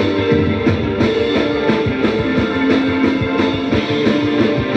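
Rock band playing: electric guitar chords over a drum kit keeping a steady beat.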